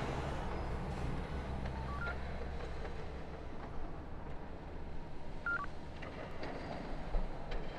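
Electronic scanner beeps from a handheld ID tablet reading a wrist ID. One short two-note beep steps up in pitch about two seconds in, and another steps down about five and a half seconds in, over a steady low hum.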